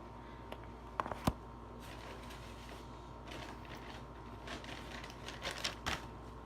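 Food packaging being handled: two sharp taps about a second in, then soft rustling and crackling.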